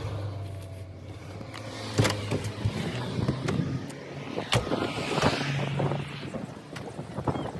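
A car engine idling, heard from the cabin. About two seconds in comes a sharp click, then a louder knock about halfway: a car door opening and shutting. Irregular footsteps and handling noise follow.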